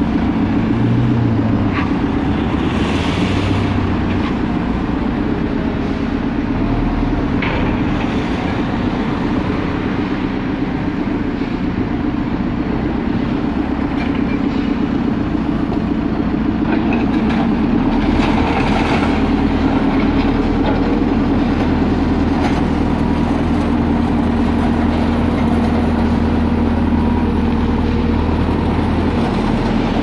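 Diesel engine of a JCB backhoe loader running steadily, with a few brief noisy scrapes as the front bucket works loose gravel and rubble.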